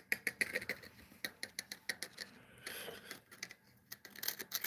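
Faint, irregular light taps and clicks, several a second with a little scratching, of fingers or fingernails on the cured fiberglass of a truck door, showing that the resin has set hard.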